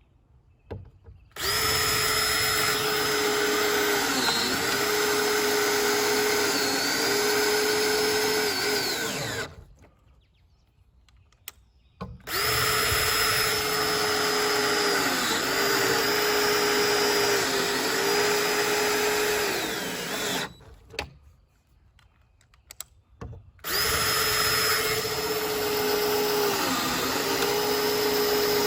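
Power drill driving long screws into pre-drilled holes in wood, run in three long stretches of about eight seconds each. The motor's pitch dips briefly several times in each stretch as it loads up.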